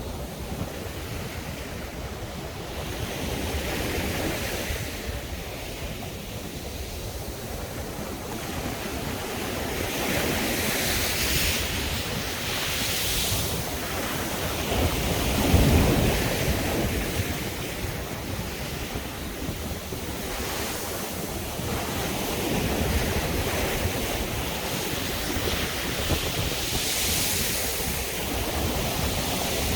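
Sea waves breaking and washing up the shore in a continuous swelling and ebbing wash, the biggest wave breaking about halfway through.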